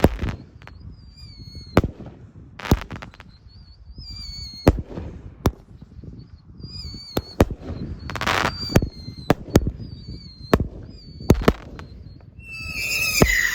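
Consumer firework cake with a girandola centre: a run of sharp bangs about a second apart from the ten shots around the outside, with wavering whistles between them. Near the end the centre girandola ignites with a loud, sustained whistle.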